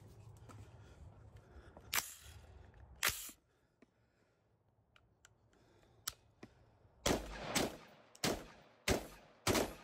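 Gilboa Snake double-barrel AR-15 rifle firing: two single sharp shots early on, then five shots in quick succession, a little over half a second apart, in the last few seconds.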